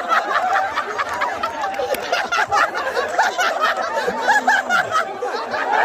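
Crowd of men chattering and laughing, many voices overlapping in a steady babble.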